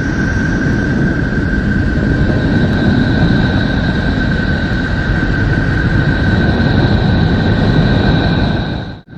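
Space 'sound' of a planet or other Solar System body, made audible from spacecraft data: a steady low rumble with two faint, steady whistling tones above it, cut off abruptly near the end.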